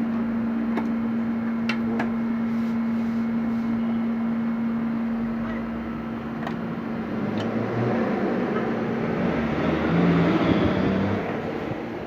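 Janome 1712 sewing machine running, a steady motor hum with a few sharp clicks, swelling louder and rougher near the end.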